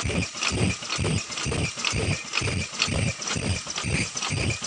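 Automatic 3-ply flat face mask making machine running, its mechanisms cycling with an even clacking of about three knocks a second.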